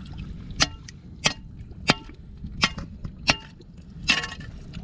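Metal tool striking oyster shells on rock: six sharp, evenly spaced knocks, each with a short metallic ring, as oysters are chipped off the stones.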